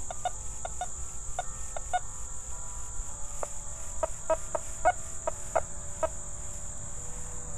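Nokta Fors Core metal detector giving short, broken chirps, two or three a second, as the coil sweeps over a rusty iron nail alone. It never settles into a solid repeating tone, the sign of iron with no coin beneath it. A steady high-pitched insect trill runs underneath.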